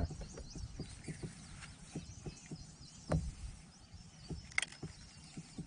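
Soft, rapid ticking of a spinning fishing reel being cranked after a cast, about four or five ticks a second, with one louder knock about three seconds in. A brief high chirp sounds near the end.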